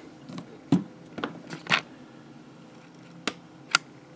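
A handful of short, sharp clicks and taps of tools being handled on a workbench mat as a multimeter is picked up and set down.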